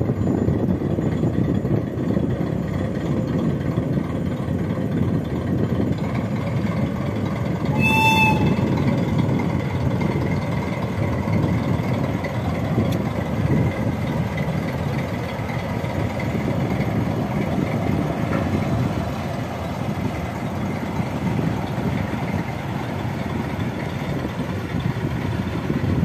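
Freight train running past: a steady rumble of wheels on the rails, with one short horn toot about eight seconds in.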